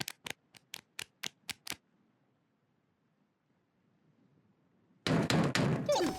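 Rapid knocking on a door, a run of quick light taps about four a second that stops about two seconds in. About five seconds in comes a louder noisy sound lasting a second, with a falling whistle-like glide.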